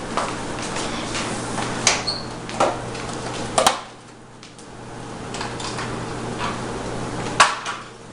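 Bowls and kitchenware being handled at a stovetop, giving a handful of sharp clinks and knocks, the loudest near the end, over a steady low hum.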